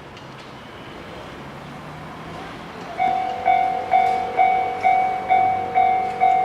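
Japanese level-crossing warning bell starting about halfway through with a clear ringing tone repeated about twice a second, the signal that a train is approaching. Before it, a steady background rumble slowly grows louder.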